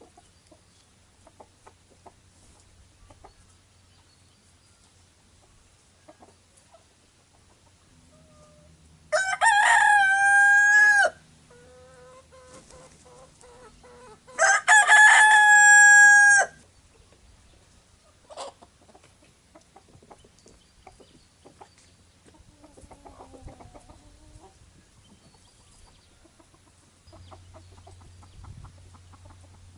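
A rooster crows twice, a few seconds apart, each crow about two seconds long. Faint hen clucking and small knocks come in between.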